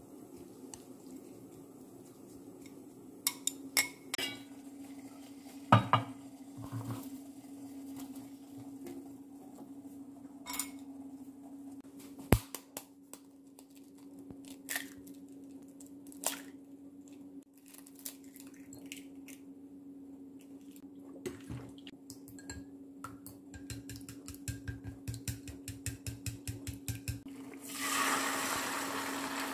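Home kitchen prep sounds: chopsticks clinking in a glass bowl, an egg cracked with a sharp knock, then a fast even run of clicks as egg is beaten in a glass bowl. Near the end, beaten egg is poured into a hot oiled frying pan and starts to sizzle. A steady low hum runs underneath.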